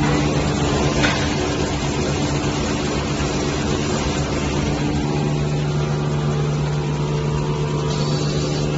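Facial tissue folding machine running: a steady mechanical hum from its drive motors and gearboxes with a constant low drone. A brief sharp noise about a second in.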